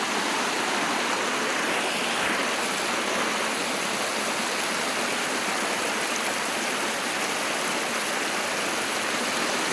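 Small waterfall splashing and rushing, a steady even wash of falling water.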